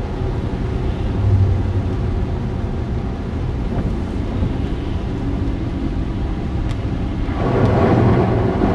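Car driving through flooded streets, heard from inside the cabin: a steady low rumble of engine and road noise with tyres hissing through standing water. About seven seconds in, a louder rush of water spray swells up.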